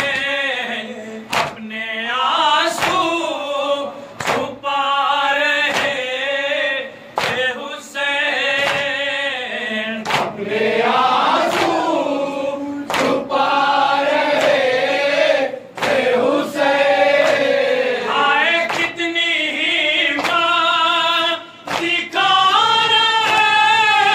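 A group of men chanting a Shia nauha (Muharram lament) in unison, unaccompanied. Sharp strikes of palms on chests (matam) come about every one and a half seconds and keep the beat.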